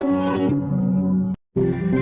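Samsung DLP TV power-on/power-off chime: a short melodic jingle that cuts off abruptly a little over a second in, then after a brief moment of silence a second jingle begins.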